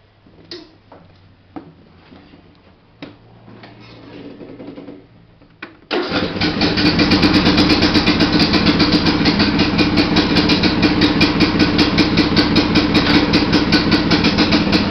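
John Deere LA105 lawn tractor's Briggs & Stratton engine being started: a few faint clicks and a short low cranking whirr, then about six seconds in the engine catches and runs loud and steady with an even, rapid beat.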